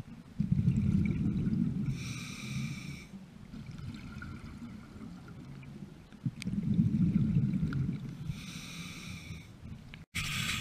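Scuba regulator breathing underwater: two breaths, each a low rumble followed by about a second of hiss. There is a brief break in the sound near the end.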